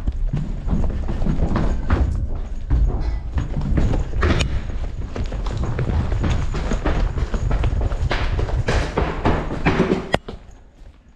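Fast running footsteps pounding down stairs and along hallways, with the body-worn camera jostling and rubbing against clothing. A sharp click comes about ten seconds in, and then the pounding stops and it goes much quieter.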